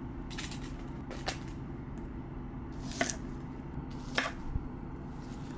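Chef's knife slicing Brussels sprouts on an end-grain wooden cutting board: four separate cuts, each a sharp knock of the blade on the board, spaced about a second apart.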